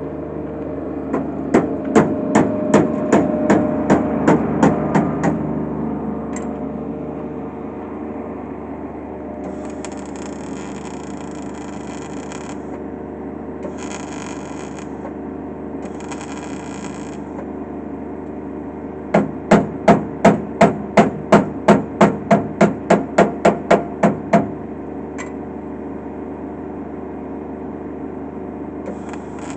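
Hammer blows on car body sheet metal, in two runs of rapid, evenly spaced strikes at about three a second: about a dozen near the start and a longer run of about seventeen two-thirds of the way through. Between the runs come several short bursts of welding hiss over a steady hum.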